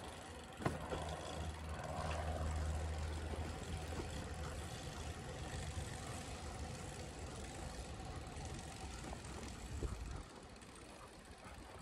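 A low, steady engine drone that slowly fades and dies away about ten seconds in, with a single click near the start.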